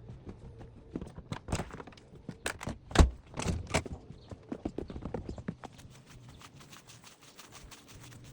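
A run of irregular sharp knocks and clacks, the loudest about three seconds in, thinning to fainter quick ticks after about five and a half seconds.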